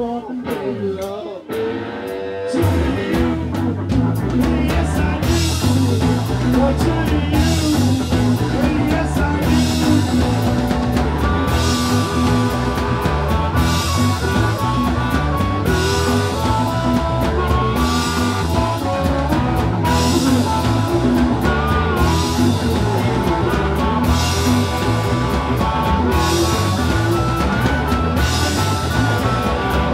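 Live blues-rock band playing electric guitar and drum kit. A sparse, bending lead line opens, and the full band comes in about two and a half seconds in.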